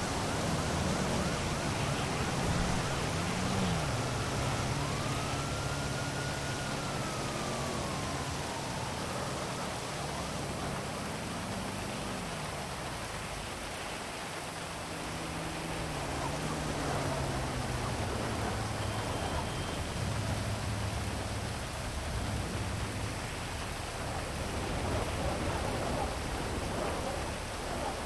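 Heavy rain hissing steadily over city traffic, with vehicle engines rising and falling in pitch as they pass. A few seconds in, a siren wails once, rising and then falling away.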